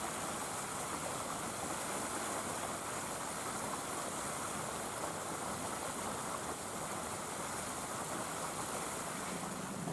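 Steady rushing background noise, even throughout, with no distinct knocks or calls.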